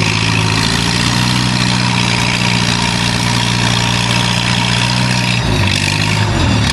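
Antique propane-fuelled tractor engine running hard under load, pulling a weight-transfer sled. The engine note is steady, then drops and wavers about five and a half seconds in.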